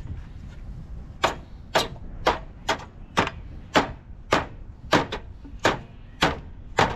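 Repeated hammer strikes, about a dozen blows at roughly two a second, starting about a second in, as something is being forced back into shape.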